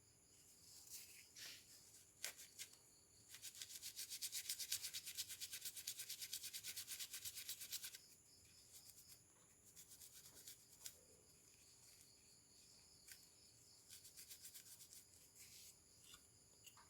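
Rapid back-and-forth scrubbing, about eight strokes a second for some four seconds, as parts of a graphics card are cleaned during a thermal-paste job. Small clicks and handling sounds come before and after, over a steady chirring of crickets.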